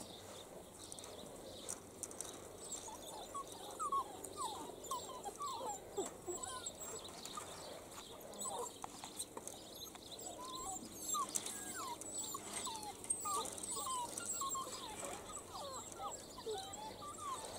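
Young Italian greyhound puppies yipping and whining as they play. Many short, high, sliding cries come thick and fast from a few seconds in.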